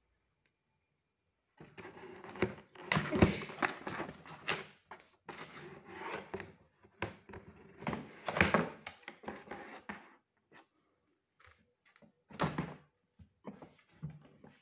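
Cardboard box scraping, rustling and thumping as cats scratch and push at its flaps, in bursts starting about a second and a half in and ending around ten seconds, then twice more briefly near the end.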